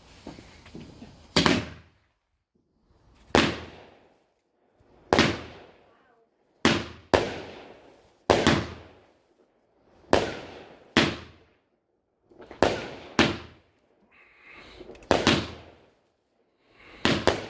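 Fireworks going off: a string of about a dozen sharp bangs, one every second or two, each dying away quickly, some preceded by a short hiss.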